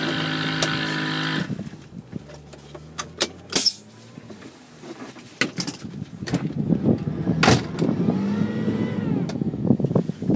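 Sounds in and around a stopped off-road vehicle: a steady held tone for about a second and a half, then several sharp clicks and knocks, and from about six seconds on a louder rough rumbling.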